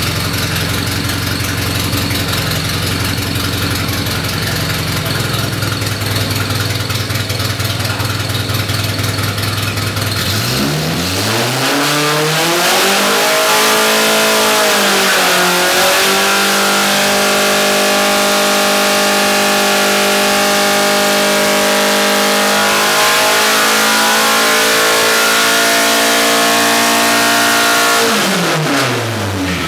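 Volvo B230 2.3-litre four-cylinder engine (Megasquirt fuel injection) running on an engine dynamometer. It runs steadily at low revs, then about ten seconds in revs up hard, dips briefly and holds high revs steadily for around ten seconds, before dropping back down near the end.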